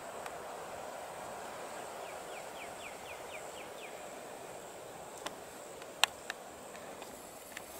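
Outdoor marsh ambience with a steady noise bed; about two seconds in, a small bird gives a quick trill of about eight falling notes. In the second half come a few sharp clicks, the loudest about six seconds in.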